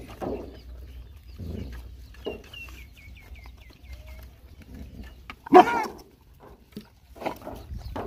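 Several dogs and puppies eating from a metal lid, with soft chewing and lapping sounds, a run of quick high bird chirps around the middle, and one short loud animal cry about five and a half seconds in.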